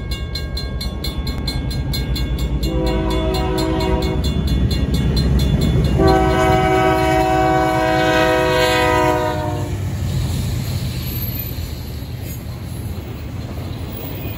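Norfolk Southern freight locomotive sounding its multi-tone horn for the grade crossing: a short blast about three seconds in, then a long, louder one from about six to ten seconds. Behind it the crossing bell rings in a fast steady beat. The rumble of the approaching train grows into the run of the double-stack intermodal cars passing.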